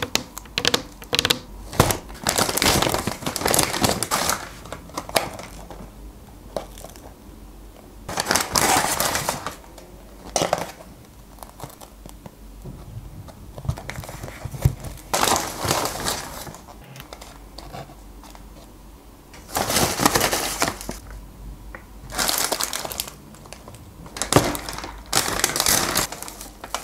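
Paper fast-food bags and cardboard food boxes rustling and crinkling in several bursts as they are handled and opened, with a few sharp taps near the start.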